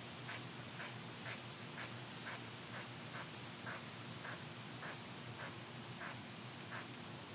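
Squirrel giving repeated short alarm barks, about two a second in a steady rhythm, agitated at a nearby intruder, over a steady hiss of wind in the tree.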